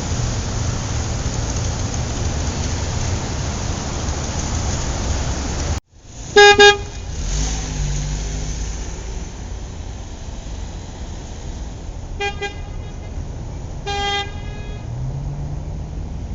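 A steady low-pitched noise stops abruptly about six seconds in. Car horn honks then sound over street traffic: two quick honks, then single honks about six and eight seconds later.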